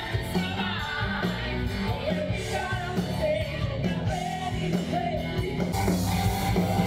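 Live rock music: a singer over a rock band with a steady bass line.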